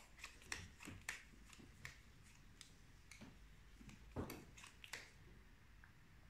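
Sleeved trading cards being handled and set down on a cloth playmat: scattered soft clicks and taps, the loudest a little past four seconds in, with the handling dying away about five seconds in.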